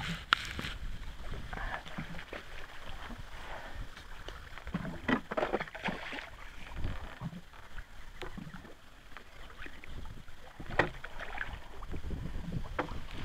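Hooked fish splashing at the water's surface as it is played in on a float rod, in irregular bursts of splashing and sloshing water, loudest about five to six seconds in and again near eleven seconds in.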